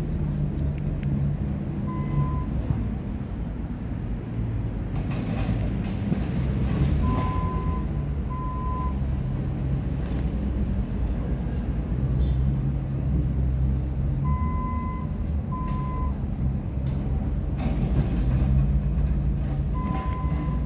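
Steady low rumble of a running vehicle engine, with short high electronic beeps, singly and in pairs, every few seconds.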